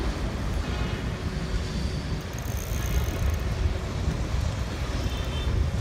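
Wind buffeting the microphone of a camera moving along with a cyclist, a steady low rumble.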